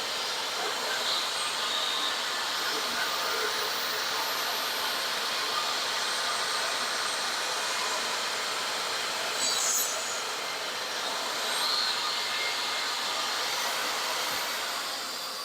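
Skil table saw running steadily as it crosscuts 45-degree angles to point a small wooden stake, with a brief louder moment about ten seconds in; the sound eases off near the end.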